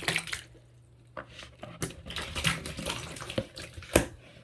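Small soft squishy toys tumbling out of a box into a bathtub of water, splashing and plopping, with a single sharp knock near the end.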